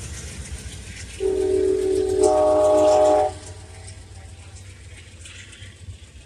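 Amtrak train's air horn sounding one long blast of about two seconds: a lower note first, joined about halfway by higher notes into a full chord, then cut off. A low rumble from the departing train runs underneath.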